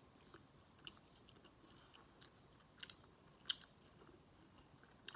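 Close-up mouth sounds of a person chewing food: scattered soft wet clicks and smacks, with a couple of louder ones about three and three and a half seconds in.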